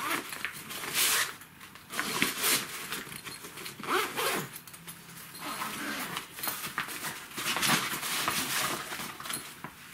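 Zippers on the top pockets of a Fisherman F48 fabric fishing bag being pulled open by hand, several separate zip strokes a second or two apart.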